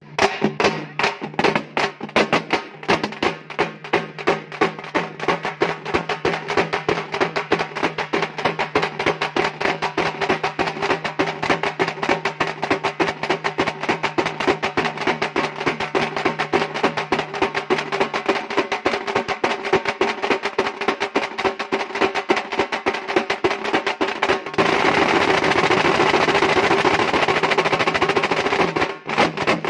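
A group of halgi frame drums beaten with sticks in a fast, driving rhythm. About 24 seconds in the strokes merge into a dense continuous roll for several seconds, then break back into separate beats near the end.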